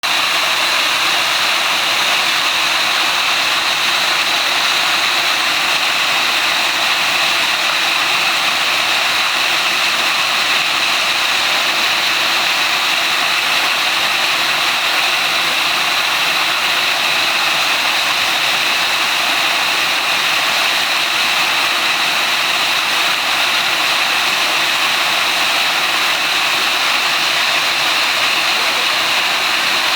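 Two-tier 8 m waterfall in a mountain gorge, heard close up: a loud, steady rush of falling water that does not let up.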